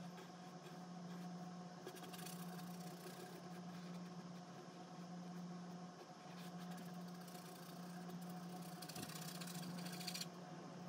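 A steady low hum, with a paintbrush brushing and scratching softly on a wooden painting panel around two seconds in and again near the end.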